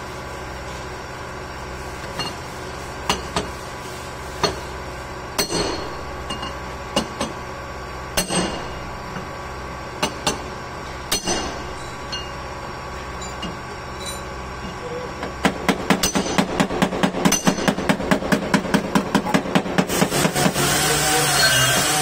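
Hammer blows on metal during a part repair: scattered single strikes at first, then a quick even run of about four to five blows a second. Near the end a steady running noise with a wavering tone sets in.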